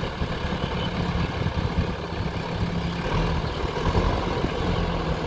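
Diesel engine of a JCB backhoe loader running steadily as the machine drives slowly forward with a heavy concrete culvert pipe on its front loader bucket.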